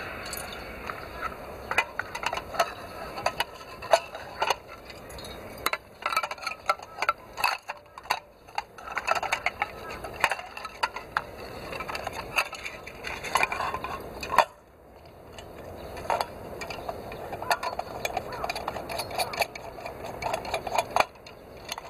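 Metal clinks, taps and scrapes from handling a small brass camping stove and fitting it into a folding steel cooker box, many short knocks in quick clusters.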